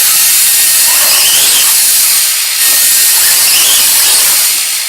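The electric drive of a 1/10-scale RC car revved up under throttle: a loud whirring hiss with a faint wavering whine. It eases briefly about two seconds in, picks up again, and falls away near the end.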